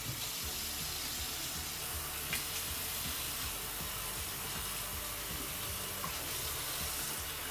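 Water running steadily from a tap as a woman's hair is wetted for washing.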